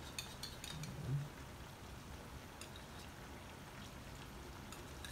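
Coconut-milk stew simmering faintly in a pan while annatto water trickles in from a spoon, with a few light clicks in the first second.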